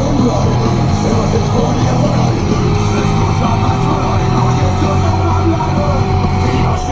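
Rock music with guitar, playing steadily over the constant low drone of the tractor's engine.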